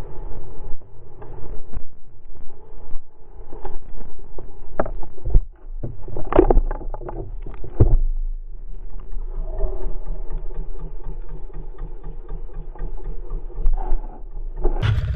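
Yamaha Grizzly 125 quad's small engine running, then several heavy knocks and thuds from about five to eight seconds in as the ATV crashes and tips over. The engine keeps running steadily afterwards, with a short loud noise near the end.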